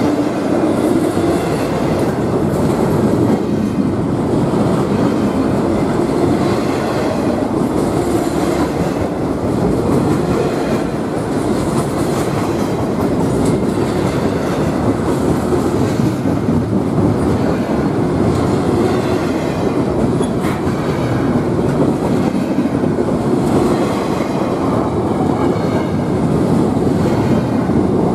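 Double-stack intermodal container well cars of a freight train rolling past close by: the steady rolling noise of steel wheels on rail.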